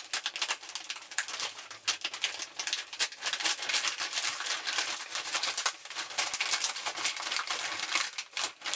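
Plastic postal bag being opened by hand, crinkling and rustling in a dense, continuous run of crackles.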